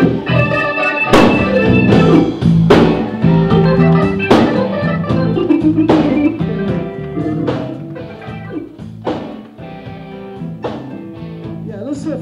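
Live band playing instrumental blues on electric bass, keyboard and drums, with a strong drum hit about every second and a half. The band drops to a noticeably quieter level about halfway through.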